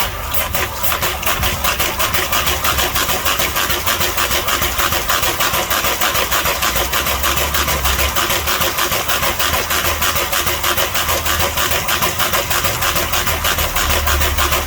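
ARO 66605J air-operated double-diaphragm pump running on compressed air on its test after overhaul: a fast, steady train of air-exhaust pulses with hiss, starting abruptly.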